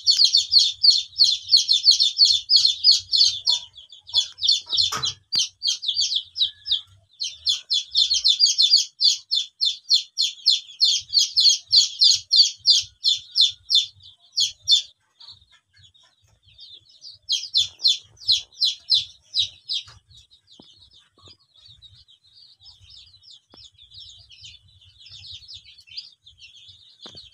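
Dozens of ayam kampung (Indonesian native chicken) chicks peeping together in a dense chorus of rapid, high cheeps, loud through the first fifteen seconds and again briefly a little past the middle, then fainter toward the end.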